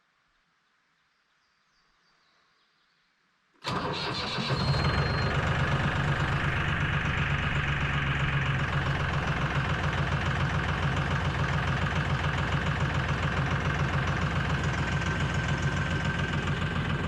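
Near silence, then about four seconds in a tractor engine starts and settles into a steady idle.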